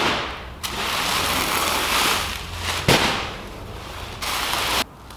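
Heavy woven plastic sacks being hauled off a stack and dropped onto a wooden pallet: long crackling rustles of the sack fabric, with a sharp knock about three seconds in and a sudden stop near the end.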